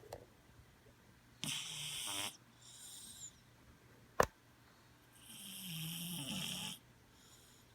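Sleeping cat snoring: two loud, raspy snoring breaths, about a second and a half in and again from about five seconds in, with a fainter breath between them. A single sharp click falls just after four seconds.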